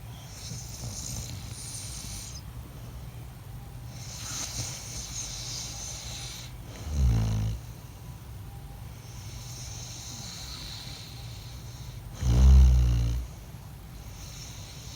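A sleeping man snoring: hissing breaths, with two loud, low snores about seven and twelve seconds in.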